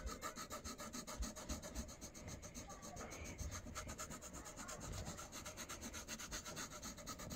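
Graphite pencil scratching across drawing paper in quick, even back-and-forth shading strokes, several a second.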